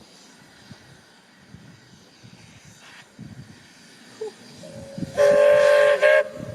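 A narrow-gauge steam locomotive's whistle blowing one loud blast of about a second, starting softly just before, with a short break near its end, then trailing off into a fainter held note.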